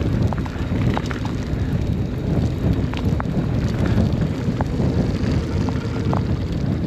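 Mountain bike descending a dirt trail at speed: a steady rumble of tyres on dirt and wind on the microphone, with scattered clicks and rattles from the bike.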